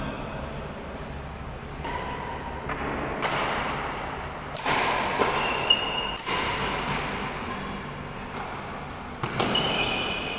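Badminton rackets striking the shuttlecock during a rally: a run of sharp hits about a second apart, echoing in a large hall, with a couple of short squeaks between them.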